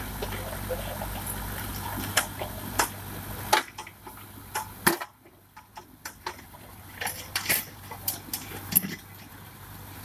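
Mahindra tractor-mounted AgriBULL backhoe digging into broken concrete and stone rubble: the diesel engine runs with a steady low hum while stones knock and clatter against the bucket. About three and a half seconds in the engine hum fades, leaving scattered sharp knocks of rubble.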